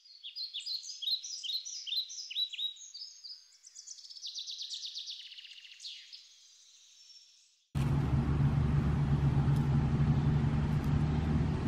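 Songbird chirping: a run of quick descending chirps and a short trill, with nothing low underneath. About eight seconds in it stops abruptly, and steady outdoor background noise with a low hum takes over.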